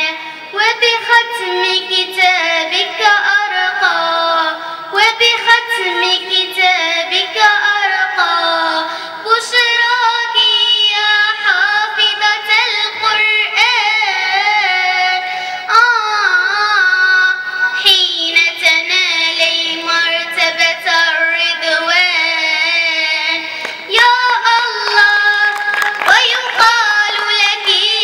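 A young girl singing an Arabic nasheed (devotional song) into a microphone, in long ornamented notes with a wavering vibrato.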